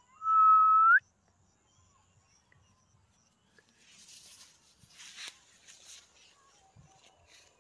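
One loud, high whine, held steady for under a second and rising at its end. A few seconds later comes rustling, brushing footsteps running through grass.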